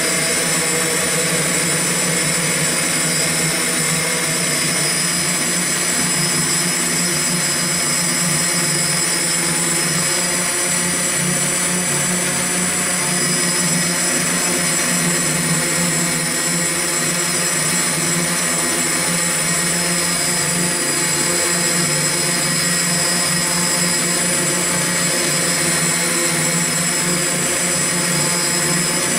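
X8 coaxial octocopter's eight electric motors and propellers running steadily in flight: a constant drone with a high-pitched motor whine, heard up close from the camera mounted on the craft.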